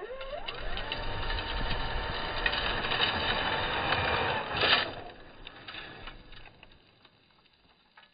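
Electric motor of an RC formula offroad buggy whining up in pitch under full throttle and holding there with rough wheel-in-dirt noise, ending with a short loud burst about five seconds in, then dropping away as the throttle is released.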